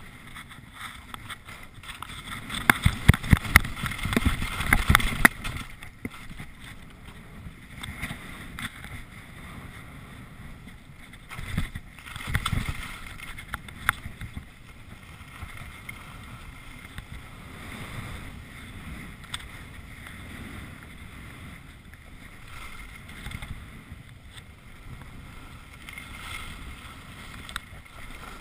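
Wind rushing over the microphone of a camera moving fast downhill on snow, with the hiss and scrape of sliding on the snow; louder rough scraping and a few knocks come a few seconds in and again about twelve seconds in.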